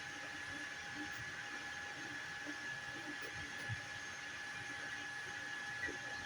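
FDM 3D printer running: a steady high whine over fan hiss, with a couple of faint knocks.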